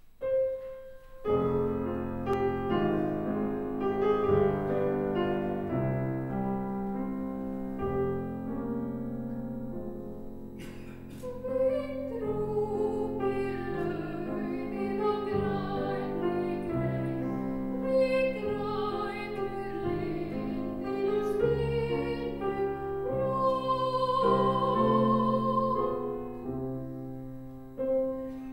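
Soprano singing an Icelandic art song with a Bösendorfer grand piano accompanying; the piano chords begin about a second in and the voice sings with vibrato above them.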